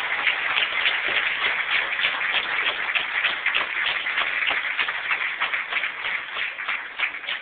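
Audience applauding: a dense, steady patter of many hands clapping that begins to thin toward the end.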